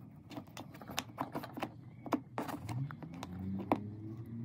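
Irregular light clicks and taps as fingers work a pink plastic chicken-waterer nipple with a metal pin. A low steady hum comes in about three seconds in.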